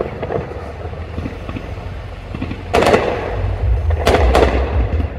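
Aerial fireworks going off: three sharp bangs of shells bursting overhead, the first about three seconds in and two more close together about a second later, over a low rumble.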